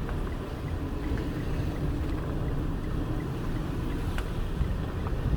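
A vehicle driving slowly, with a steady low rumble of engine and tyres heard from inside, and some wind.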